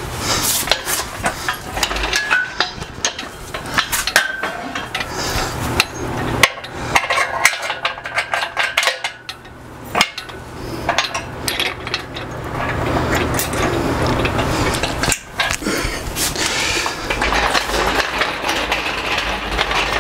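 Steel frame of a Harbor Freight 1-ton folding shop crane being folded for storage: repeated metal clanks, knocks and rattles as the boom, legs and pins are handled.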